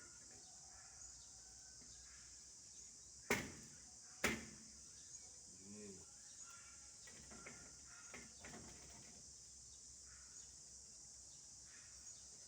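Two sharp knocks about a second apart, over a steady high-pitched insect chirring.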